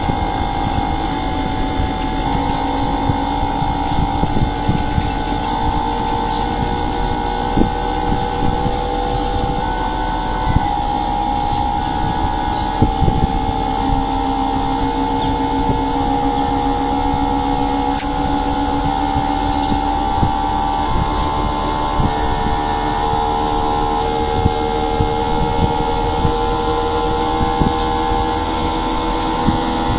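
A running motor hums steadily, with several whining tones that step up and down in pitch and slowly rise, and scattered light clicks throughout.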